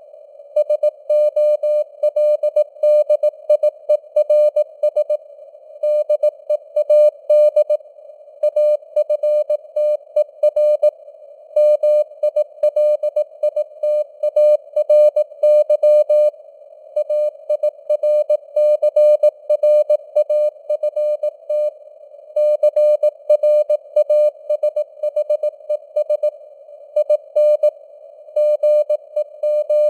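Morse code at 18 words per minute: a single mid-pitched tone keyed on and off in dots and dashes, with pauses between letters and words, over simulated radio noise, its strength fading up and down (QSB).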